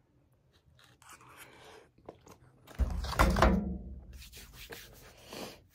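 Foil freeze-dried meal pouch being handled: a loud thump about three seconds in as it is set down on the table, then rustling and crinkling.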